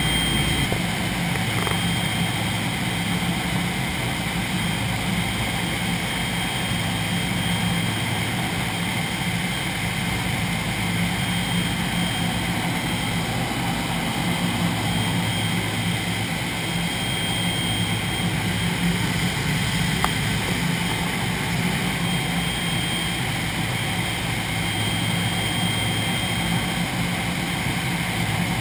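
Steady drone of a B-29 Superfortress's four Wright R-3350 radial engines and propellers in cruising flight, heard from inside the cabin. A single brief click sounds about two-thirds of the way through.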